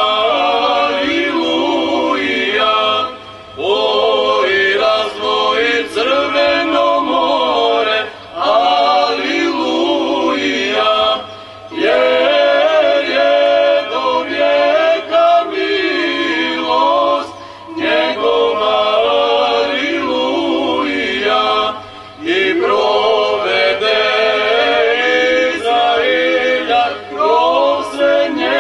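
Small mixed choir of men's and women's voices singing an Orthodox church chant a cappella, in long phrases broken by short breath pauses every few seconds.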